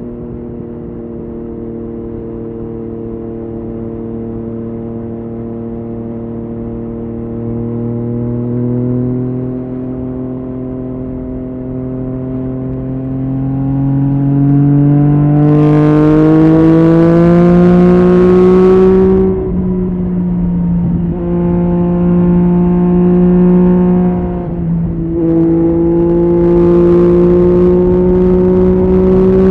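Yamaha MT-09's three-cylinder engine through an Akrapovic exhaust, running steadily at low revs and then pulling up through the revs. Its pitch drops suddenly at a gear change about two-thirds of the way in, dips once more briefly a few seconds later, and then climbs again under throttle.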